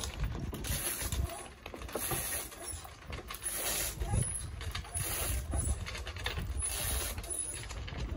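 Wind gusting on the microphone, with scattered mechanical clicks and rattles.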